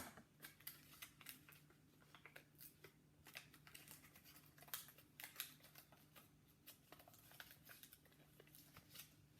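Faint, irregular snips of scissors cutting small slits into paper, over a low steady hum.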